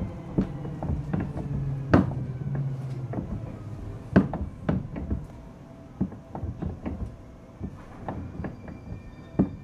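Seibu 4000 series resistance-control electric train heard from inside the car as it slows for a station stop: wheels clacking irregularly over rail joints under the running noise, with a low hum and a falling whine that fade in the first three seconds. Thin high tones come in near the end.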